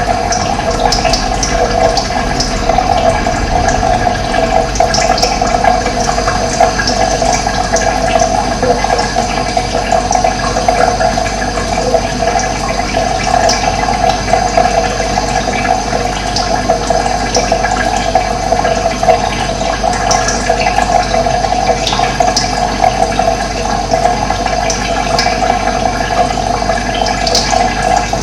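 Steady rush of running water, with short high bird chirps now and then.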